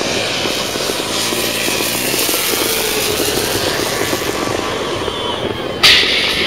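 Continuous engine noise from motor vehicles, with a sudden louder burst about six seconds in.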